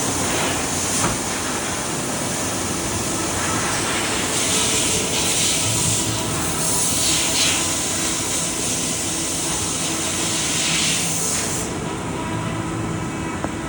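Chiron CNC machining centre milling aluminium: a steady mechanical running noise with several faint steady tones, and a loud hiss that comes in about four seconds in and stops about two seconds before the end.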